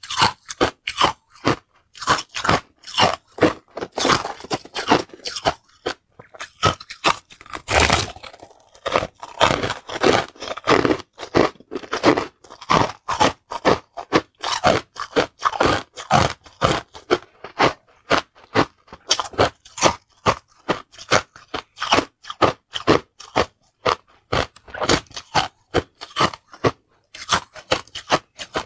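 Crushed ice being chewed close to the microphone: a rapid run of hard crunches, about three a second, with short pauses between mouthfuls.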